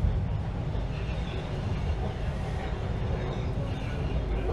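TTC subway train in motion, heard from inside the car: a steady low rumble of the train running on the rails.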